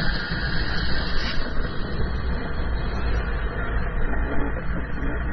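GasGas 125 two-stroke motocross bike running out on the track, its engine mixed into a heavy, uneven low rumble of wind on the microphone.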